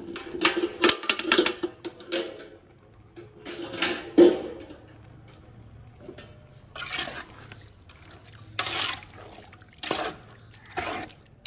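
Marinated chicken being scraped out of a container into a large metal pot of wet curry base, then stirred with a ladle: wet squelching and scraping with metal knocks. A dense run of scrapes and clicks comes first, a louder knock about four seconds in, and separate stirring strokes in the second half.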